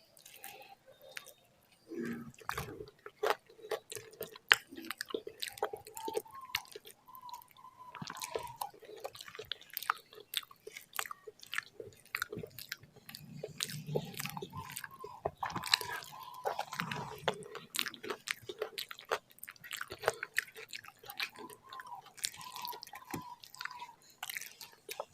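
Close-miked chewing of a mouthful of rice and mashed vegetable bharta, with many irregular wet mouth clicks and smacks.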